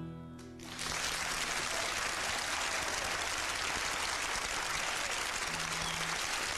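The last acoustic guitar chord of the song dies away, then applause starts just under a second in and keeps up at a steady level.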